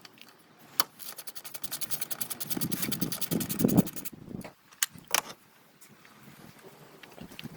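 Socket ratchet clicking rapidly, about ten clicks a second, as a bolt is spun out, followed by a few separate metallic clinks and knocks.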